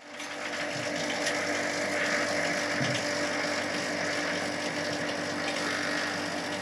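Steady machinery hum in a boat's engine room, with several steady tones, and a few light mechanical clicks.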